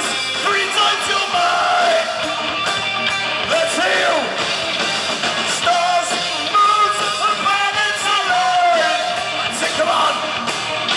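Heavy metal band playing live: electric guitar, bass guitar and drums, with a male singer's lead vocals sliding up and down in pitch.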